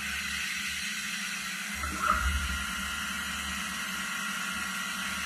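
Machinery running with a steady hiss and a low hum, rising slightly in level about two seconds in.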